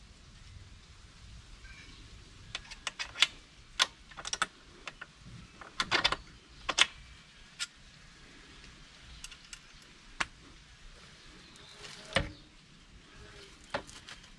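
Sharp metallic clicks and clinks from a KTM footpeg and its stock pin and cotter pin as they are worked into the bracket by hand. The clicks come in a busy cluster in the first half, then a few single clicks.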